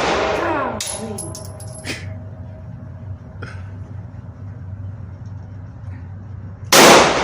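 Gunshots in an indoor range: the ringing tail of one shot fades at the start, a few light metallic clinks follow about a second in, and another loud shot goes off near the end.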